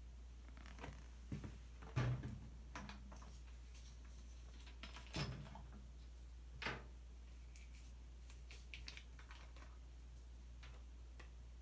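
Plastic detergent bottles being handled and put down: a few light knocks and plastic crinkles, the loudest about two seconds in, with further ones about five and seven seconds in. A low steady hum runs underneath.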